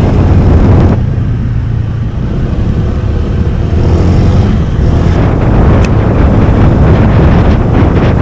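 Honda Click 125i scooter on the move: its single-cylinder engine and road noise, with wind buffeting on an action camera's built-in mic. It drops quieter about a second in and grows louder again about halfway.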